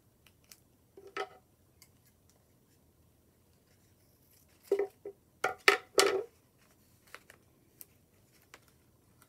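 Scissors cutting a strip of masking tape: a short snip about a second in, then a cluster of quick, sharp snips and tape crackles around five to six seconds in, followed by a few faint light clicks.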